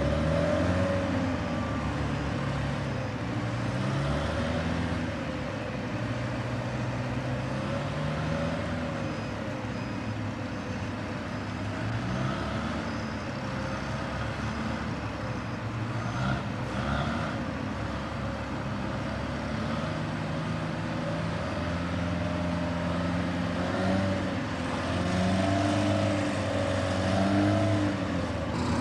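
A large engine running continuously, its revs rising and falling in steps.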